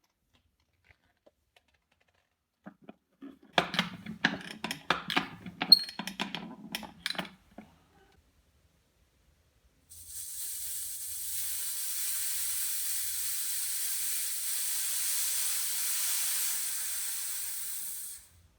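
Irregular clattering knocks and rattles for about four seconds. Then a pressurised jet hisses steadily for about eight seconds and cuts off abruptly.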